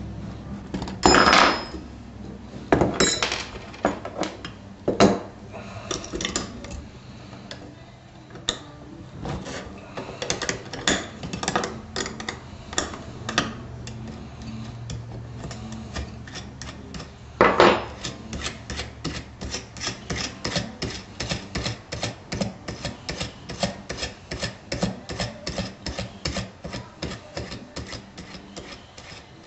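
Metal nuts, bolts and a small wrench clicking and clinking as an HHO dry cell is unbolted by hand, with a few louder knocks in the first five seconds and one past the middle. After that comes a quick, even run of light clicks, about three or four a second.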